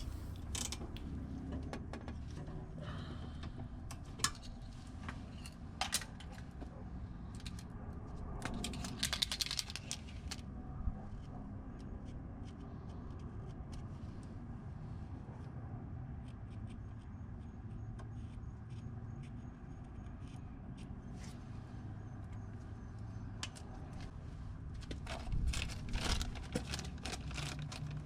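Scattered metallic clinks, taps and scrapes of hand tools working on car brake hardware, over a steady low hum.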